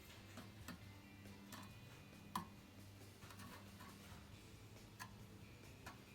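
Near silence: a low steady hum with about six faint, sharp clicks scattered through it, the loudest a little past two seconds in.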